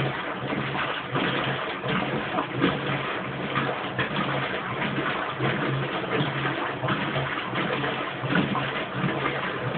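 Kenmore Oasis top-load washing machine running its wash cycle: continuous water splashing and sloshing in the tub, with a low motor hum that comes and goes.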